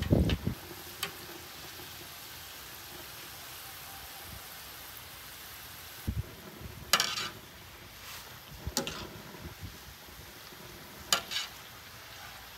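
Food frying in a pan with a steady sizzling hiss. A utensil knocks heavily against the pan at the start, then scrapes and clicks against it about five times.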